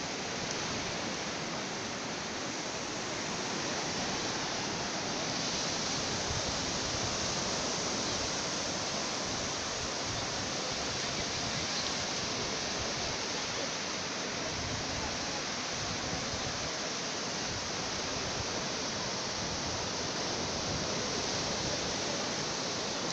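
Sea surf breaking and washing over the shallows, a steady rushing hiss.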